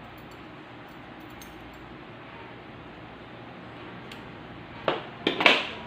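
Handling noise: a faint steady hiss, then near the end a sharp click followed by a short, louder rasping rustle.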